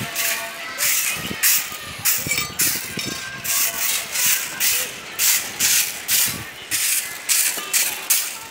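A trowel scrapes and stirs cement slurry in a bucket. About halfway through, a stiff stick broom starts sweeping the slurry across the tiles in short scratchy strokes, about two a second.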